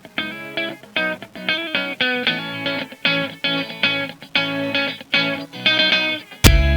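Background music: a rhythmic run of picked guitar notes, with loud drum hits coming in near the end.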